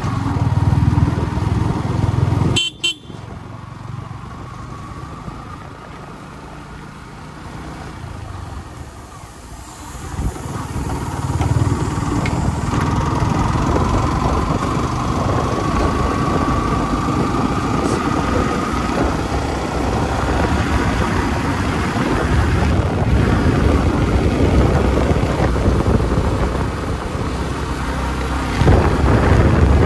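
Motorcycle riding on the road, with a vehicle horn honking. The engine runs quieter for several seconds, then louder again with a slowly rising whine.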